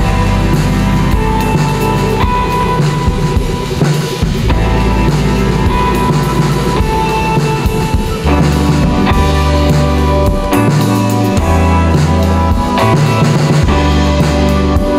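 Indie rock song playing, with a drum kit keeping the beat under bass and held melodic tones. About eight seconds in, the bass line becomes heavier and fuller.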